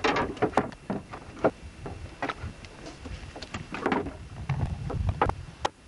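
Irregular knocks and clatter of things being handled on a wooden boat, the loudest right at the start, over a low rumble.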